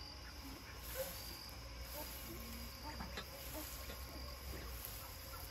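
Quiet outdoor ambience in a bird pen: a faint steady background with a few soft scattered bird chirps and the high hum of insects.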